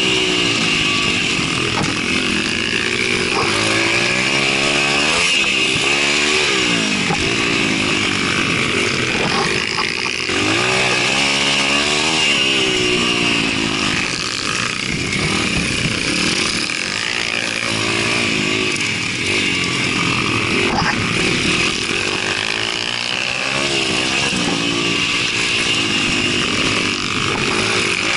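Pit bike's single-cylinder engine, heard close up from the rider, revving up and down repeatedly while being ridden hard round a dirt track.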